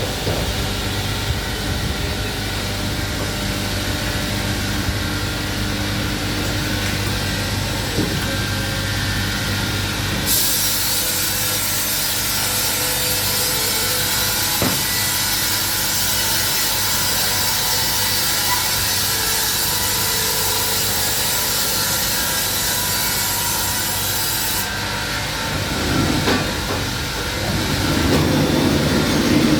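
Wood-Mizer WB2000 industrial band sawmill running with a steady hum, then cutting through a log: about ten seconds in, a loud even hiss of the blade in the wood starts and holds for roughly fifteen seconds before the cut ends. A louder rumble follows near the end.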